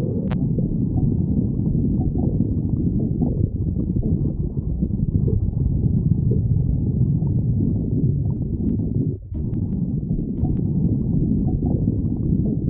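A person's stomach growling: a continuous low rumbling with a short break about nine seconds in.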